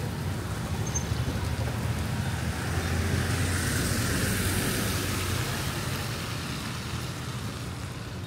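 Motorbike traffic on a wet street: a steady low engine hum, with one motorbike passing close about three to five seconds in, its tyres hissing on the wet road, then fading.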